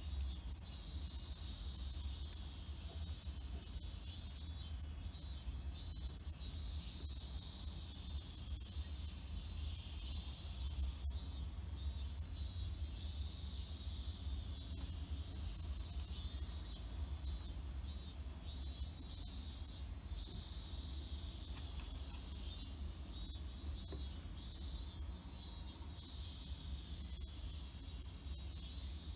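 High-pitched insect chirring, pulsing unevenly, over a steady low hum, with a faint click about eleven seconds in.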